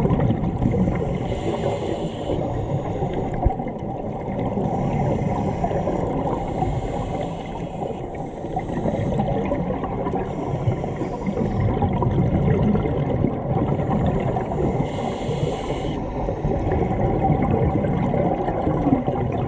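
Muffled underwater rumble and bubbling water, with a short high hiss every few seconds.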